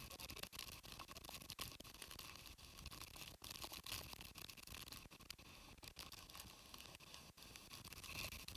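Faint, steady hiss of typhoon wind and surf breaking against a concrete seawall, choppy with many brief dropouts.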